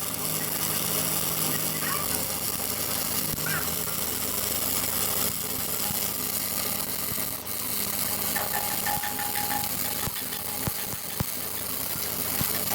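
Stick (SMAW) welding arc crackling and sizzling steadily, with a few sharp pops near the end.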